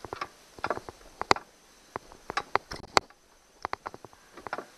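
Irregular sharp metallic clicks and taps, some in quick little clusters, of a hand tool working the locked bolts on a 1999 Honda 8 hp four-stroke outboard's midsection. The loudest clicks come a little over a second in and again at about three seconds.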